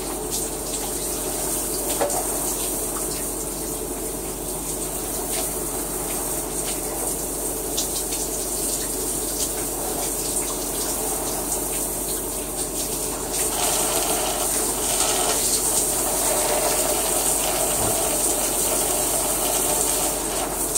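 Shower water running steadily, a little louder from about two-thirds of the way through.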